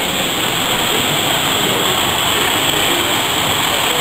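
Model trains running along the layout track, a steady, even running noise as a goods train of wagons and then a line of coaches pass close by.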